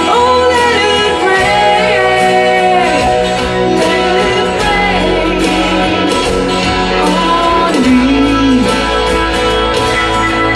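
A woman singing a slow rock ballad with held, gliding notes over a guitar-led accompaniment.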